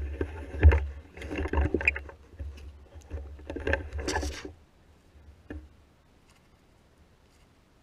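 Handling noise on a rifle-mounted camera as the rifle is carried and swung: bursts of low rumbling and rustling for about four and a half seconds, then a single click.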